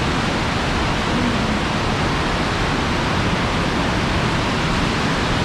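Flood-swollen river rushing over and past Twin Falls: loud, steady white water running high after heavy rain.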